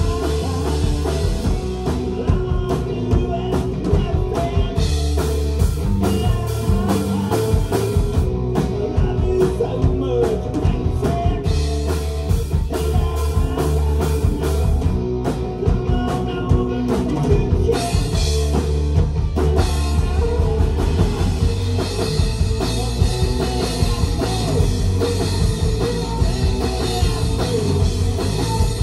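Live rock band playing a song: drum kit and guitar driving a steady beat.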